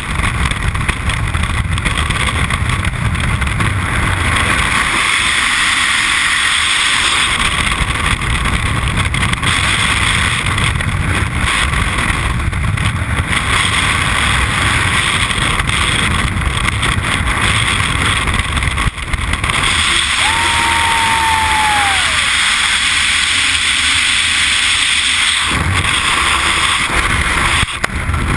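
Freefall wind rushing over a skydiver's helmet camera microphone, a loud steady roar. About two-thirds of the way through, a clear steady tone sounds for about two seconds and bends down in pitch at its end.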